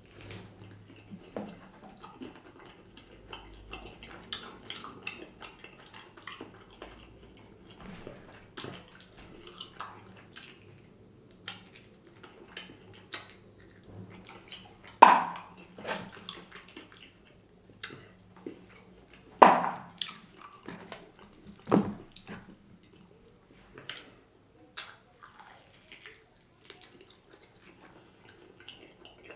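Close-miked wet chewing and lip smacking of someone eating chicken wings: irregular small clicks and smacks, with three louder smacks about halfway through and later.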